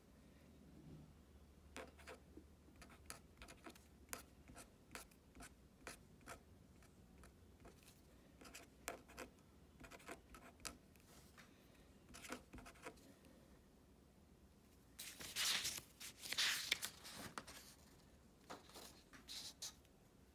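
Faint writing with a felt-tip pen on a paper worksheet: many short scratches and taps of the tip as numbers are written. About fifteen seconds in comes a louder couple of seconds of the paper rustling as the sheets are handled.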